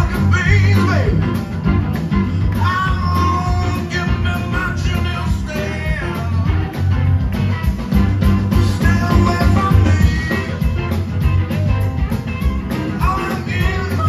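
Live blues-rock band playing: electric guitars over bass and drums, with a male voice singing.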